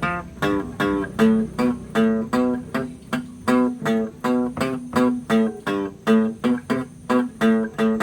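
Guitar playing a solo melody of single plucked notes, about four notes a second in an even rhythm.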